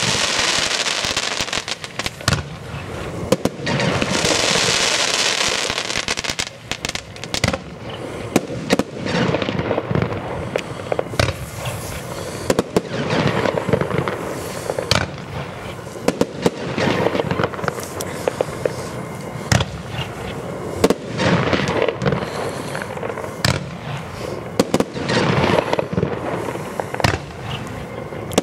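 Gaoo consumer firework battery (cake) firing shot after shot, a rapid string of sharp launch thumps and aerial bursts. A steady hiss rises under the bursts at the start and again about four to six seconds in.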